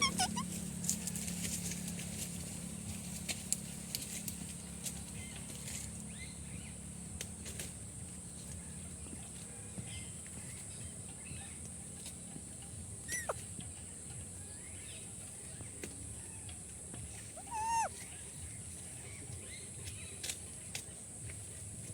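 Parrot giving a few calls: a quick downward-sweeping squawk about 13 seconds in, and a short rising-and-falling call near 18 seconds, over a steady high-pitched hiss and scattered faint clicks.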